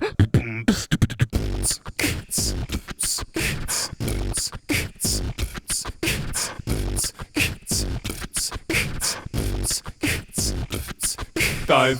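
Vocal beatboxing: a steady "boots and cats" beat of mouth-made kick drum and hi-hat sounds, several short hits a second.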